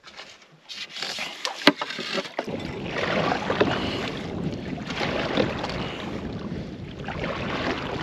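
A canoe being paddled: a wooden paddle pulling through the water, with water splashing and washing along the hull. A few sharp knocks in the first two seconds, then a steady wash of water noise from about two and a half seconds in, swelling and easing with the strokes.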